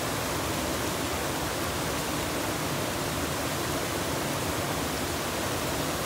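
Water pouring steadily over a small two-tiered river waterfall and churning in the pool below, an even, unbroken rush of water.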